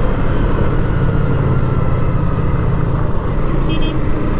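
Lifan KPR 165R motorcycle engine running under way, slowly easing in pitch, with wind rushing over the helmet-mounted microphone. Two short high beeps sound near the end.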